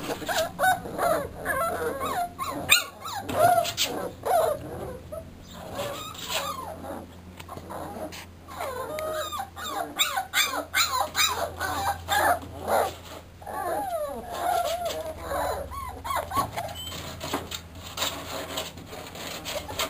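A litter of English bull terrier puppies whining, many short cries gliding up and down and overlapping one another.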